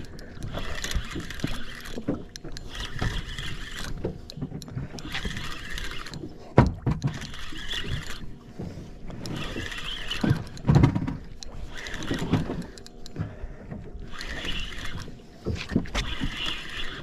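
Spinning reel cranked in short spells while reeling in a hooked fish, its gears whirring for about a second at a time with brief pauses between. Two dull thumps, the loudest sounds, come about a third of the way in and again a little past the middle.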